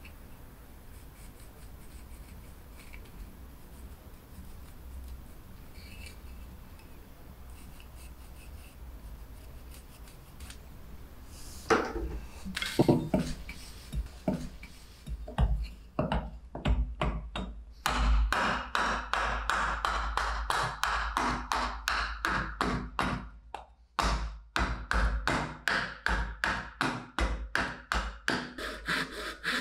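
Carving hatchet chopping a wooden spoon blank against a chopping block: quiet handling of the wood at first, then a few heavy chops a little before halfway, followed by a fast run of light strikes, about three a second, broken by one short pause.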